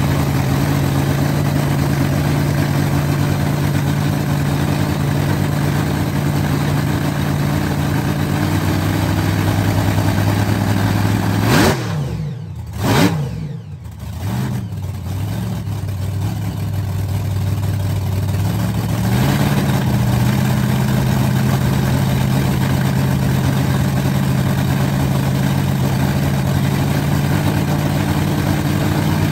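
A large vehicle engine idling steadily. It is revved sharply twice about twelve seconds in, drops back, and climbs to a slightly higher steady idle a few seconds later.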